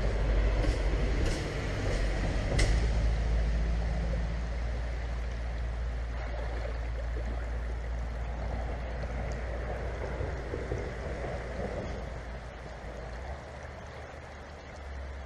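Shallow river riffle running over rocks, with a few sharp knocks and splashes in the first few seconds as flat stones are turned over in the water. A low rumble under the water noise drops away near the end.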